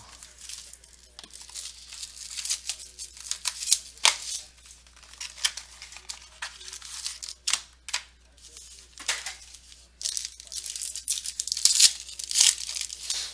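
Plastic wrapping being torn open and crinkled by hand, a run of irregular short crackles: the unwrapping of a box of football trading cards.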